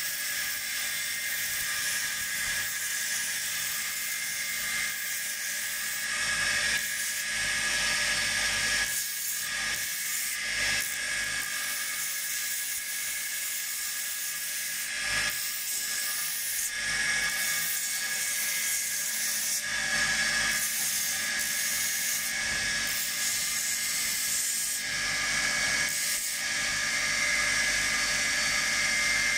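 Belt sander running with a steady high whine, its abrasive belt hissing against a rosewood walking-stick handle that is pressed to it for shaping.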